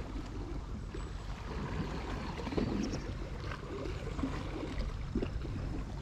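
Steady wind rumble on a GoPro's microphone, with faint rustling and a few light knocks.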